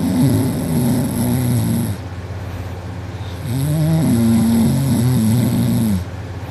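A person snoring heavily in deep sleep: two long snores of about two seconds each, with a wavering pitch and a quieter pause between them.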